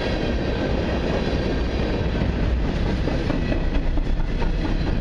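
Freight cars of a long mixed freight train rolling past: a steady rumble of steel wheels on rail, with scattered clatter.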